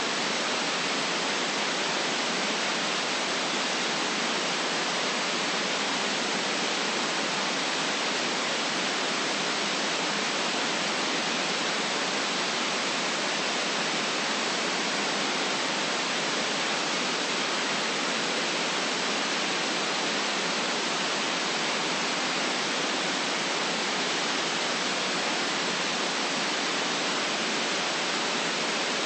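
Steady, unchanging white noise hiss played for sleep, with little deep bass.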